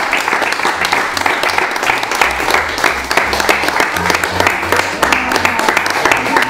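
A small group of people clapping their hands in lively, continuous applause.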